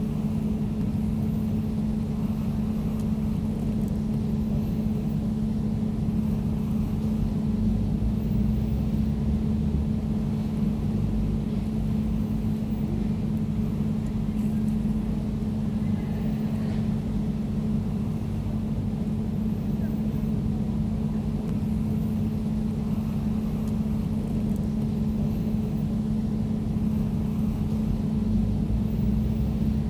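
Air conditioner running: a steady hum with a low rumble beneath it.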